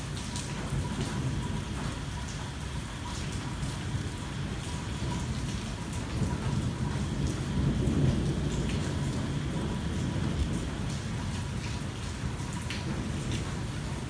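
Rain falling on a car's roof and windshield, heard from inside the car, with many separate drop hits. A low roll of thunder swells through the middle and fades again.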